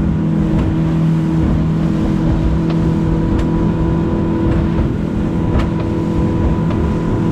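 Engine running steadily at speed under a heavy low rumble, with a few sharp knocks.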